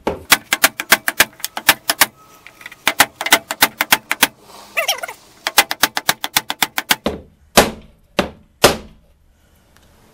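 Wooden mallet tapping on the wooden frame of an Andersen window sash, in quick runs of about five blows a second. The runs end in three heavier single blows about half a second apart.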